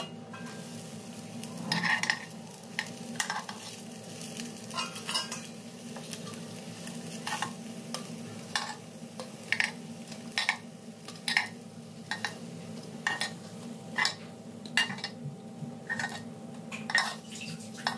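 A metal spoon clicking and scraping against an appe pan as rava appe are turned and lifted out of its cups: short sharp clinks about once a second, over a steady low hum.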